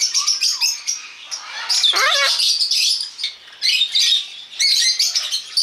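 Many small birds chirping and chattering together, a constant overlapping twitter, with a louder squawk of rapidly wavering pitch about two seconds in.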